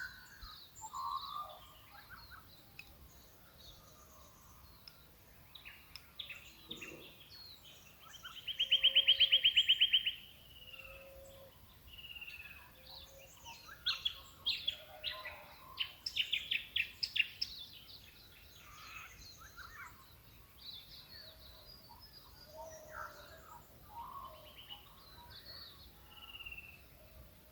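Several wild birds calling in a morning chorus, with scattered chirps and whistles from different birds. A loud, very fast trill lasts about two seconds a third of the way in, and two runs of rapid repeated notes follow around the middle.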